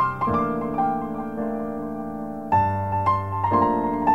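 Solo piano music, slow: chords struck a few times and left to ring, with single melody notes above them.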